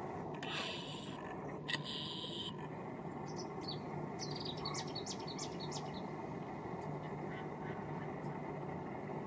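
A small bird giving a run of short, high chirps over a steady low background rumble, with two short hissing rushes in the first couple of seconds.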